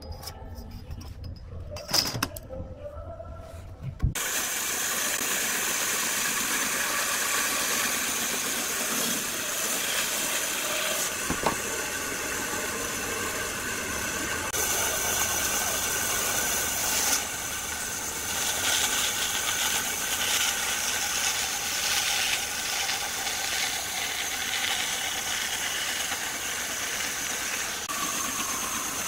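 Band saw ripping a log lengthwise: a loud, steady noise of the running saw with its blade cutting through the wood, from about four seconds in. Before that come a few quiet handling sounds with one sharp click.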